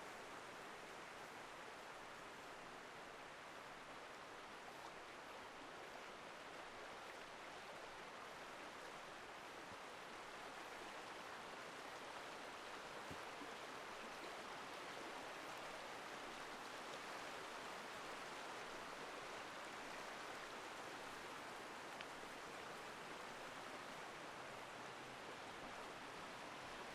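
Forest stream rushing steadily, growing a little louder toward the end.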